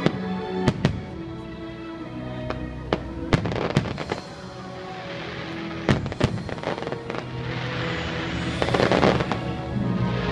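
Aerial fireworks over show music: a string of sharp bangs from bursting shells, some in quick pairs, then a longer crackling fizz of glittering stars near the end, the loudest part.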